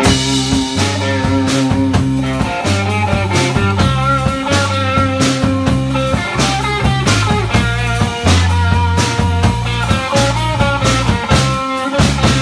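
Live rock band playing loud: electric guitar, electric bass and a Yamaha drum kit. The full band comes in right at the start after a solo guitar lead-in, with the drums keeping a steady beat under held bass notes.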